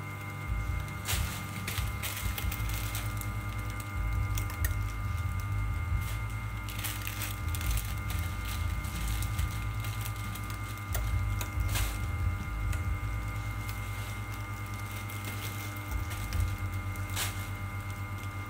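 A machine runs with a steady electric hum while a clear plastic bag of fried shallots crinkles and crackles as it is handled. Sharper crackles come a few times, about a second in, around seven seconds, near twelve seconds and near the end.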